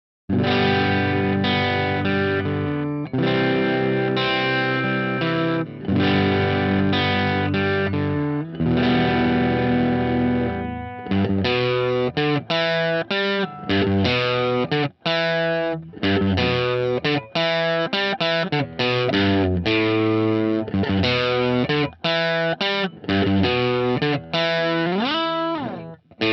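Electric guitar played through a JHS Colour Box into a Marshall JTM45 amp simulator: sustained strummed chords for about the first eleven seconds, then a quicker single-note lick with a string bend near the end.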